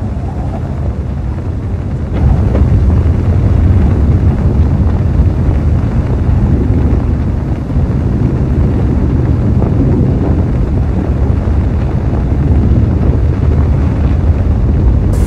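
Sound-effect rumble of a Mars lander descent stage's rocket thrusters firing: a steady, deep rushing noise that grows louder about two seconds in.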